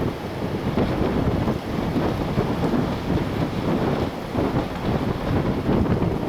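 Strong wind gusting through trees, rising and falling in surges every second or so, with wind buffeting the microphone as a low rumble.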